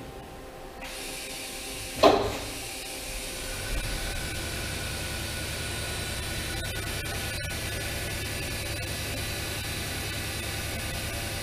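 Fadal VMC 6030 CNC vertical machining center running a short demo program. A hiss comes on about a second in and a sharp clunk about two seconds in, then the machine settles into a steady hum and hiss with a faint high whine.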